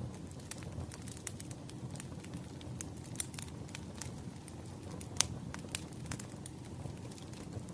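Wood fire crackling: irregular sharp pops and snaps over a low, steady rumble of burning logs, with one louder pop about five seconds in.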